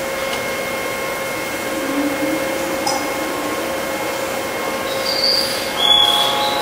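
Hillary Machinery RT1250U horizontal boring mill running, its spindle and integrated facing head turning as the quill feeds out, with a steady whine. A lower wavering tone comes in about two seconds in, and brief high squeals near the end.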